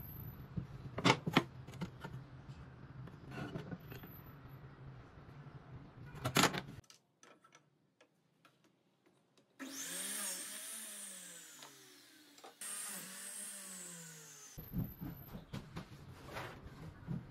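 Wooden pieces and hand tools knocking and clicking on a workbench, with two sharp knocks. After a gap, a compound miter saw's electric motor runs twice, each time spinning up and winding down.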